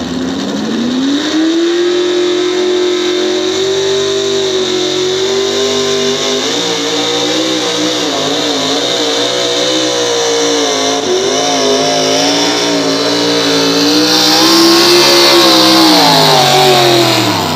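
Pickup truck engine revving up and held at high revs under full load while dragging a pulling sled, its pitch wavering. It grows louder towards the end, then the revs drop as the pull ends.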